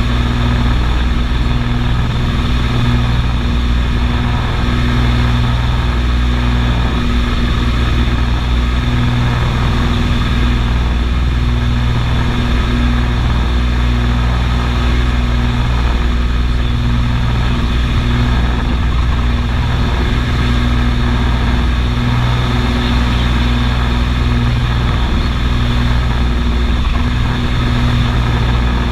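Cabin noise of a Beechcraft Baron 55 in flight: its twin piston engines and propellers drone steadily, with a slow pulsing every couple of seconds.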